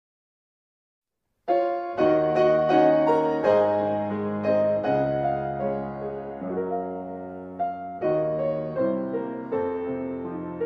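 Silence, then about a second and a half in a piano starts playing slow chords over long-held bass notes.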